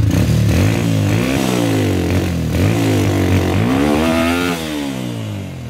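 Small motorcycle engine running on turpentine with a rich mixture, revved up and down by the throttle about three times, its pitch rising and falling, and settling lower near the end.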